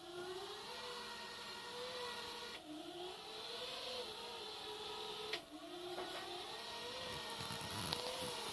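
Everybot RS500N wet-mop robot cleaner running on its twin spinning mop pads, its motor whine rising and falling in pitch. Twice the whine breaks off with a click and restarts low, then climbs again.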